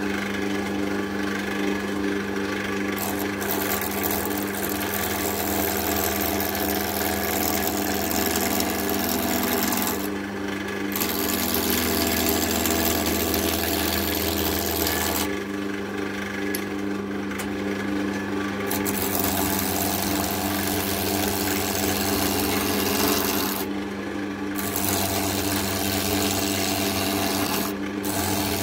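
Wood lathe running with a steady motor hum while a hand-held steel turning tool cuts the spinning oak blank, giving a continuous hissing scrape. The cutting hiss drops away briefly several times as the tool lifts off the wood, leaving the motor hum.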